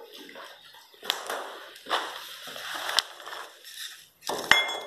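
Footsteps and handling crunching on rubble and grit on a debris-covered concrete floor, a few separate crunches about a second apart. A sharp clink near the end rings briefly.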